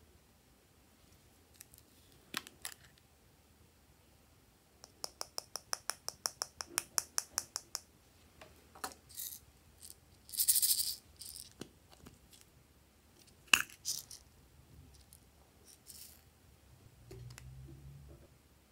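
Small plastic toy containers, a toy baby bottle and a pencil-sharpener case, being handled and opened over slime. There is a quick run of even clicks about five seconds in, a short hiss around ten seconds, and one sharp snap a few seconds later.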